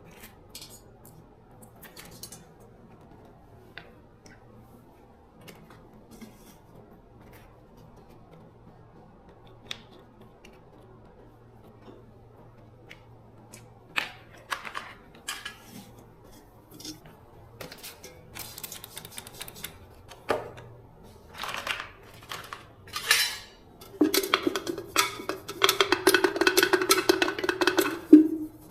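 Metal parts and hand tools clinking and clattering during a repair: sparse light clicks at first, sharper knocks from about halfway, then a few seconds of continuous rattling scrape near the end.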